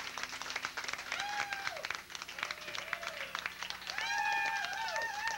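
Small audience clapping after a song, with high-pitched whooping cheers over it: a few long rising-and-falling whoops, the longest and loudest from about four seconds in.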